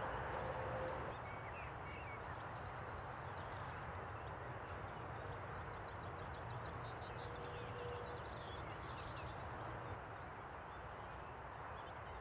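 Open-field ambience: a steady hiss of outdoor air with a low rumble, and small birds chirping and twittering now and then, most often in the first two-thirds.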